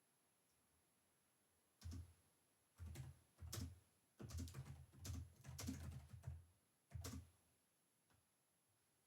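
Typing on a computer keyboard in several quick bursts of keystrokes, each with a soft thud under the clicks. It starts about two seconds in and stops about two seconds before the end.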